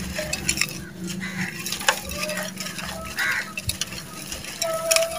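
A dry red sand-cement chunk crumbled between the hands, its grit trickling and crunching into a clay pot, with many small sharp clicks of falling crumbs and pebbles.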